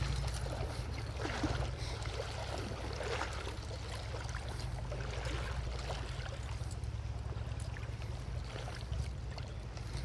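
Wind buffeting the camera microphone in a steady low rumble, over the light ripple and splash of stream water.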